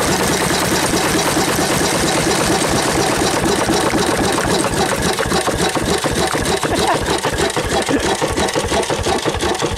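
Bamford SD3 6 hp single-cylinder stationary diesel engine running just after being hand-started for the first time, firing in a rapid, even beat.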